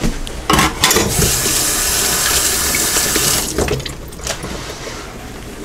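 Kitchen tap running for about two and a half seconds, with a few knocks just before it starts and after it stops.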